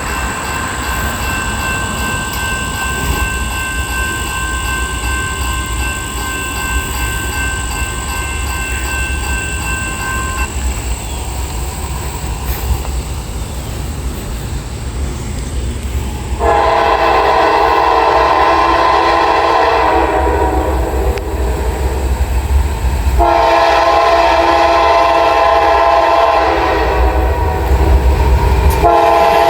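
Freight train rumbling past, then the lead locomotive's Nathan K5LA five-chime air horn sounding two long chords about two-thirds of the way in, a short break between them, with another blast beginning right at the end. The horn is sounded as a small horn show.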